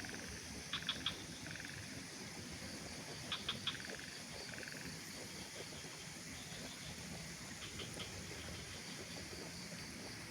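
Outdoor nature ambience with a small animal calling: short, sharp, high chirps in quick groups of three or four, three times, with a few brief buzzy trills between, over a steady background hiss.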